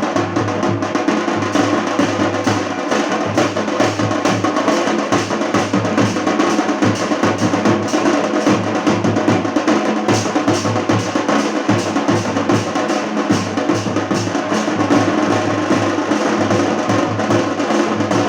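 A street band's drums playing a rapid, steady, loud beat.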